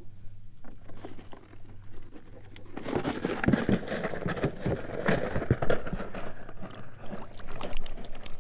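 Water splashing and sloshing at the side of a kayak as a hand dips in to release a trout, starting about three seconds in as a run of short, sharp splashes.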